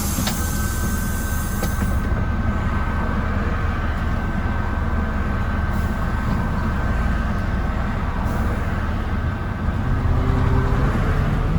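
Mercedes-Benz O307 city bus heard from inside the saloon while driving: steady diesel engine and road rumble with a thin, steady whine. Near the end the engine note rises and grows louder as the bus accelerates.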